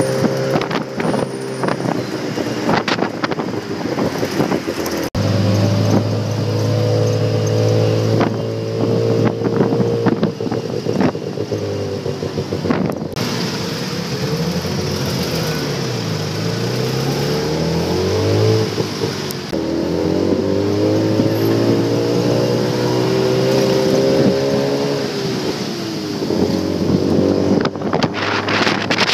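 Tuk-tuk's small engine running in traffic, its pitch falling and rising with the revs and gear changes, dipping low around the middle.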